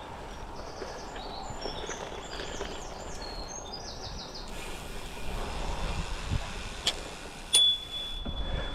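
Goodyear Connector gravel bike tyres rolling steadily over a gravel trail, with wind on the microphone. A bird sings in the first few seconds, and near the end come two sharp clicks, the second followed by a thin high tone for about a second.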